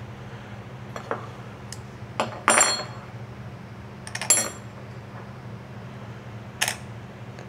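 Metal motorcycle rearset parts clinking and knocking as they are handled and set down, about five separate strikes, the two loudest ringing briefly. A low steady hum runs underneath.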